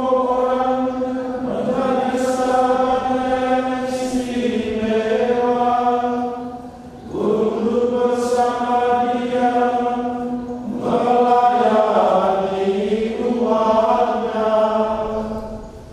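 A Catholic priest chanting a Mass prayer, his voice held mostly on one reciting pitch in long phrases with a few falling phrase endings, and short breaks for breath about 7 and 11 seconds in.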